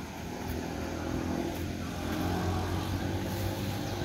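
A motor engine humming steadily, getting louder after about a second.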